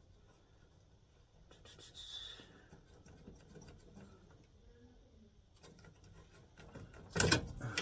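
Faint scratching, rubbing and small clicks of hands working wires and connectors at a furnace control board, with a louder short rasp about seven seconds in.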